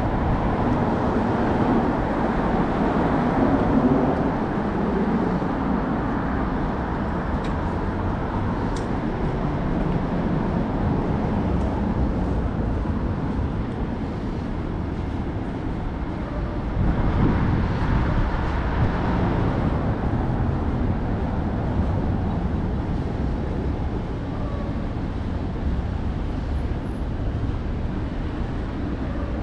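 City street traffic noise, a steady rumble of road vehicles, with one vehicle passing a few seconds in and another a little past halfway.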